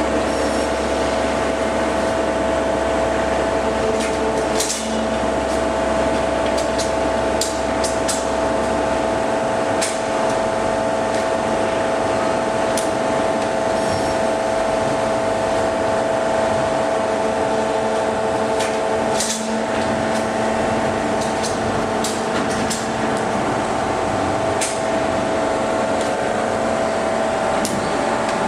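Maren Propak 2R185 two-ram baler running: a steady mechanical whine, with scattered sharp clanks and knocks. A low hum under it stops about nine seconds in.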